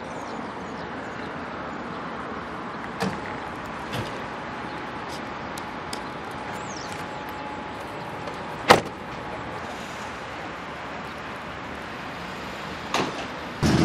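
Steady outdoor background noise, with a few light clicks and one sharp knock about two-thirds of the way through.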